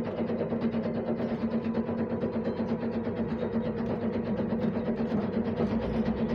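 Kolkata tram running, heard from inside the car: a steady hum under a fast, continuous rattling clatter, a terrible noise.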